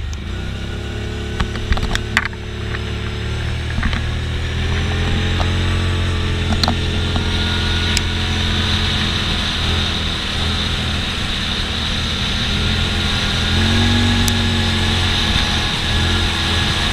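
Side-by-side UTV's engine running under way as it picks up speed, with wind and road noise growing stronger. A few sharp knocks or rattles come about two seconds in.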